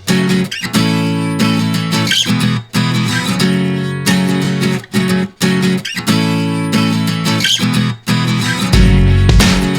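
Background music led by a strummed acoustic guitar, with a bass line coming in near the end.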